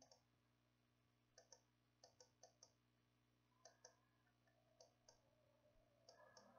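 Faint computer mouse clicks, about a dozen scattered through near silence, several in quick pairs.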